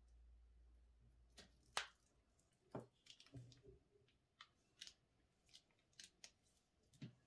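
Scissors snipping once through the tip of a plastic piping bag about two seconds in, followed by scattered faint clicks and crinkles as the bag of slime is squeezed.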